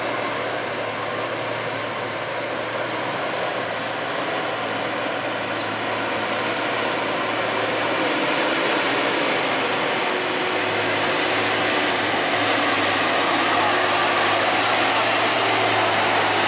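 Heavy truck running with engine and road noise, a steady rushing sound that grows gradually louder, as if the truck is drawing near.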